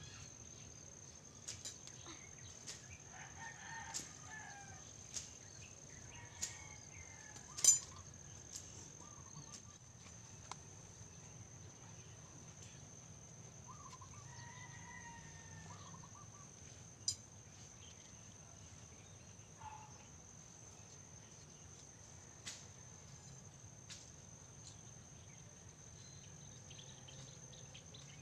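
Faint, distant chickens clucking and a rooster crowing, with a steady high tone and scattered sharp clicks; the loudest click comes about a third of the way in.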